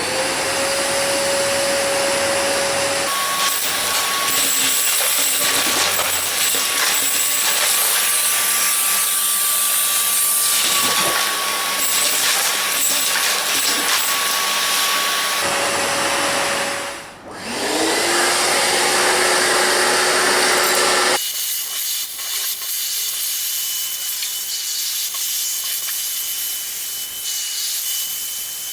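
Kärcher wet-and-dry vacuum cleaner motors spinning up and running with a steady whine. The pitch changes a few times as different machines or stretches are heard. One motor stops about 17 seconds in and spins back up, and near the end the sound drops to a quieter, higher hum.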